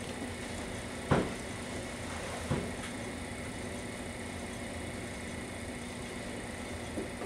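Potter's wheel motor running with a steady hum as the wheel spins, with two short knocks about one and two and a half seconds in.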